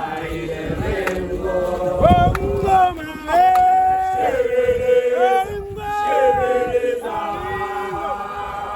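A group of men singing a chant together in long held notes that step up and down in pitch.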